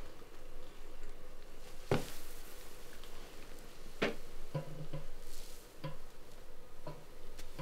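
Sparse, quiet background music: single plucked notes spaced a second or two apart, the two clearest about two and four seconds in, with soft low notes in between later on.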